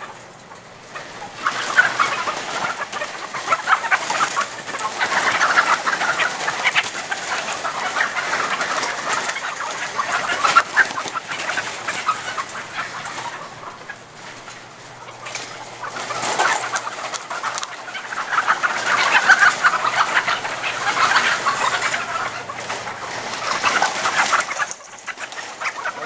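A large flock of caged white laying hens squawking and cackling in alarm, spooked by someone walking close past their cages. The din swells and fades in several waves.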